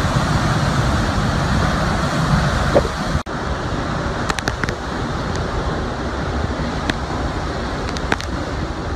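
Storm-force wind and driving rain, a steady loud rush with heavy low rumble from the wind hitting the microphone. It drops out for an instant a little over three seconds in, then carries on with a few sharp clicks.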